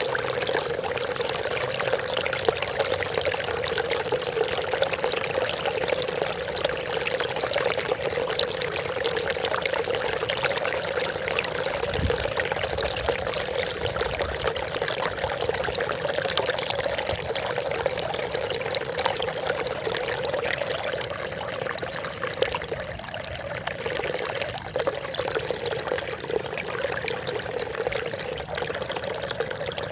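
Water trickling and splashing steadily, a continuous babbling patter with no break.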